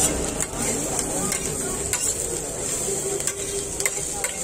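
Beef tripe sizzling on a large flat griddle, with a steady hiss, while a metal spatula scrapes and taps across the griddle in irregular sharp clicks.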